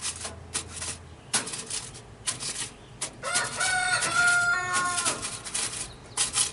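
A rooster crows once, a drawn-out call of about two seconds in the middle, over the crinkle and clatter of aluminium foil and a metal smoker grate being handled.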